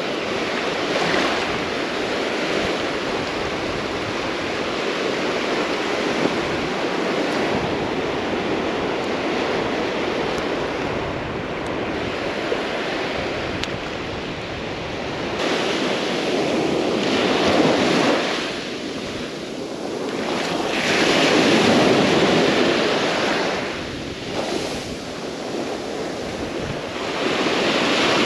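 Ocean surf washing onto a beach, swelling louder and easing off as waves come in, with wind buffeting the microphone.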